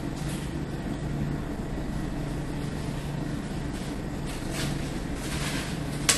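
Steady low background hum of machinery, like air conditioning or refrigeration, with a couple of soft rustles and one sharp click near the end.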